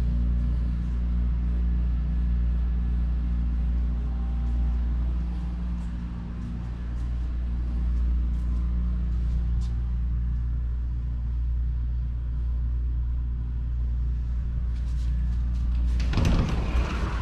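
Steady low hum with a few faint steady tones under it. About sixteen seconds in comes a brief, louder rustling scrape.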